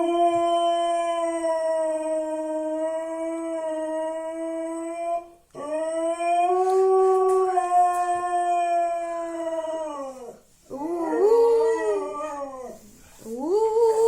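Siberian husky howling: two long, steady howls of about five seconds each, then two shorter howls that rise and fall in pitch.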